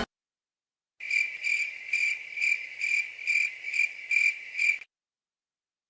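Cricket chirping, about two chirps a second for some four seconds, starting about a second in and stopping abruptly: the 'awkward silence' crickets meme sound effect.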